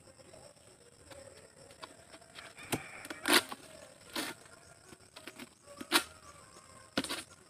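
Pole-mounted harvesting sickle hacking and tugging at oil palm fronds: five sharp cracks, some with a short tearing rustle, starting about a third of the way in and spaced a second or so apart.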